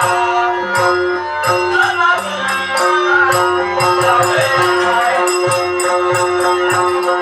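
Live Dashavatar folk-theatre music: a steady drone note held throughout, with drum beats and small cymbals struck in a quick, steady rhythm.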